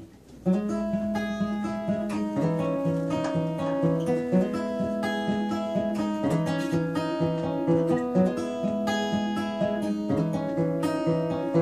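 Steel-string acoustic guitar played solo, a steady run of picked notes and chords that starts about half a second in after a brief pause.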